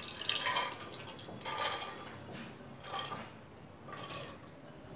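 Soaked toor dal and its water sliding from a glass bowl into a metal pressure cooker: soft wet splashes and drips, in four or five separate pours about a second apart.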